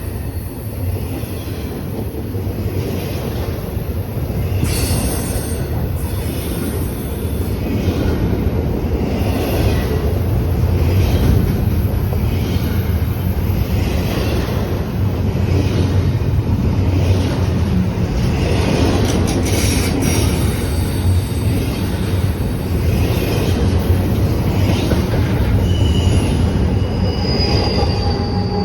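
BNSF intermodal freight train's cars rolling past: a loud, steady low rumble with clacking of wheels over the rails. Brief high-pitched wheel squeals come near the end.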